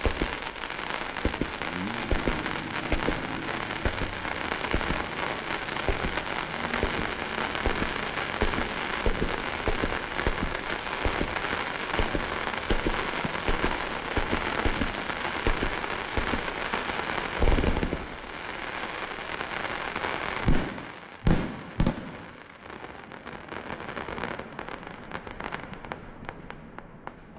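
Fireworks crackling densely and without a break, a mass of small pops, as several glittering trails burst in the sky. A few loud bangs come between about 18 and 22 seconds in, then the crackling thins out and fades.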